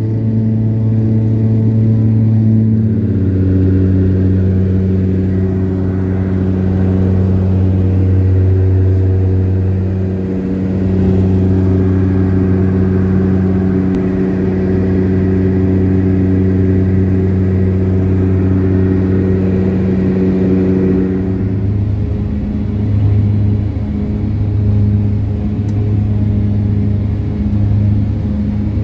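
Cabin drone of a twin-turboprop plane's engines and propellers, a steady multi-tone hum that steps down in pitch about three seconds in. About three-quarters of the way through it gives way to a different, throbbing engine and propeller drone heard from inside a small bush plane.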